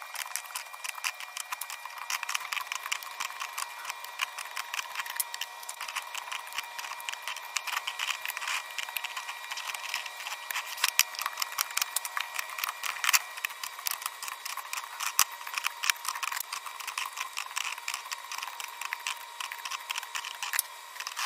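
Dense, irregular clicking, tapping and rattling of packaging and containers being handled, with a thin, tinny tone and nothing in the low end.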